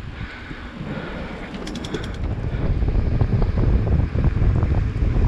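Mountain bike riding along a wet trail: rattling and knocking over rough ground with wind rumble on the microphone, getting louder from about three seconds in, and a short run of sharp clicks about two seconds in.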